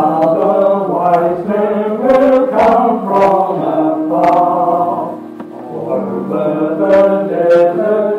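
Choir singing in parts, in long held chords, briefly softer about five seconds in.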